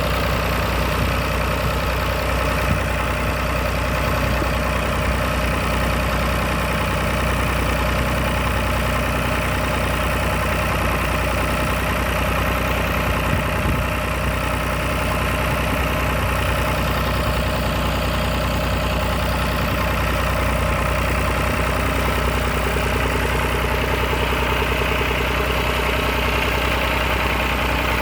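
1966 Massey Ferguson 135 tractor engine running steadily under load, pulling a plough.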